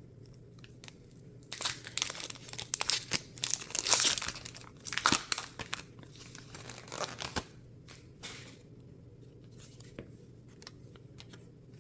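A foil Pokémon card booster pack being torn open and its wrapper crinkled: a run of ripping and crackling for about six seconds, loudest in the middle, then only a few faint clicks and rustles.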